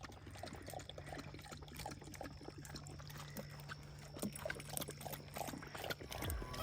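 A dog lapping water, faint and irregular, over a steady low hum.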